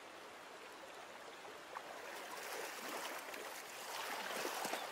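Shallow river flowing over stones, a steady rush that grows louder from about two seconds in, with a few faint splashes.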